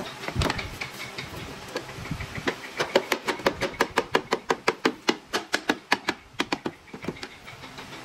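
A fast run of sharp knocks, about four to five a second, densest in the middle and thinning out near the end.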